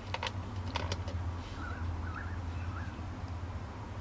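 Paracord lanyard knot being worked tight by hand: a few short clicks and rubbing sounds of cord and fingers in the first second, over a steady low hum.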